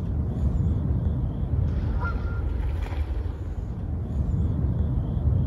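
Honking bird calls repeated over a low steady rumble.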